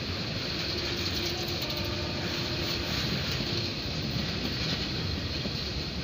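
Freight train of covered goods wagons rolling slowly past, its wheels running over the rails in a steady track sound. A faint steady tone sits over it for about three seconds near the start.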